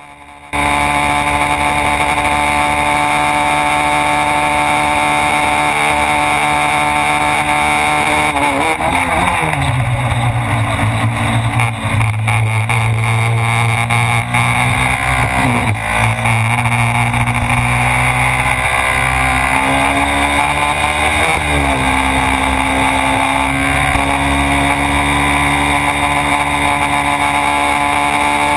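Honda Twister 250's single-cylinder four-stroke engine running hard at a steady pitch. About nine seconds in, the pitch falls and settles lower, with further brief dips and rises later on.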